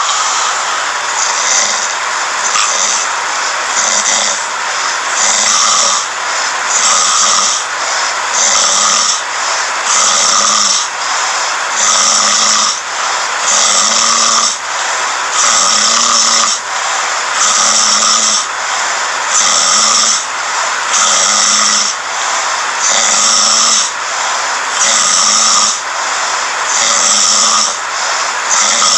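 A sleeping man snoring in a steady, regular rhythm, about one breath every two seconds, each with a low rumble and a breathy hiss.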